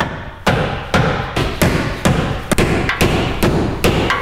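Sledgehammer striking the slit sheet-metal body seam, folding it over onto the inner fender well, with about two sharp metal blows a second in a steady rhythm.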